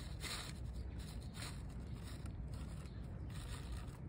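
Beet seeds tipped from a paper seed packet onto a paper towel: a few faint, soft rustles and scrapes of the packet and the seeds sliding out.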